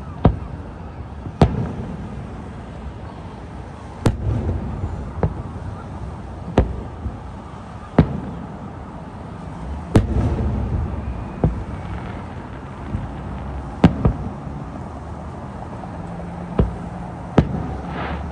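Aerial firework shells bursting one after another at irregular intervals: about a dozen sharp bangs, each trailed by a low rolling rumble.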